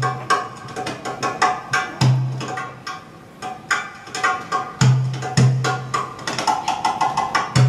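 Improvised hand-drum solo accompanying bellydance: quick, sharp, high strokes in a busy rhythm, punctuated by occasional deep booming bass strokes, with a fast roll near the end.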